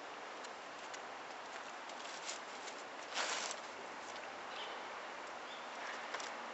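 Steady outdoor hiss with scattered light rustling, and one louder rustle about three seconds in: a cat pawing at a woven rush mat (goza) and the dry straw under it.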